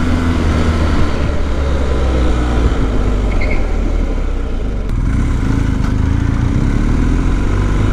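BMW R1250's boxer-twin engine running under way, its note easing after the first second and picking up and settling again in the second half.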